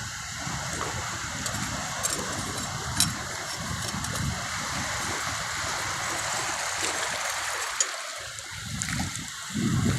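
Shallow seawater running and trickling, a steady rushing hiss, with irregular low rumbles and a few small clicks.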